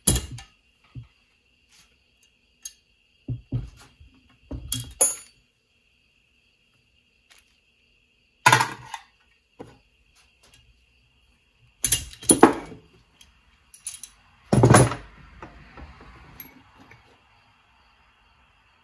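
Metal clanks and clicks of a C-frame valve spring compressor and valve parts while valves are removed from a 1973 Triumph Spitfire cylinder head: a series of separate knocks, the loudest about 8, 12 and 15 seconds in.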